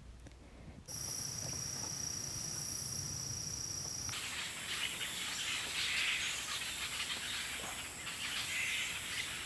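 Insects singing in the open. After a near-silent first second, a steady high-pitched insect trill starts abruptly. About four seconds in, it cuts to a denser insect chorus that runs on evenly.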